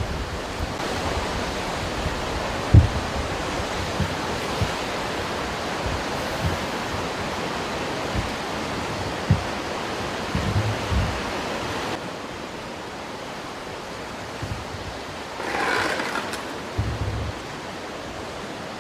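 Rushing floodwater: a steady, dense wash of water noise, with scattered low thumps of wind on the microphone. The level drops at a cut about twelve seconds in, and a short louder burst comes about sixteen seconds in.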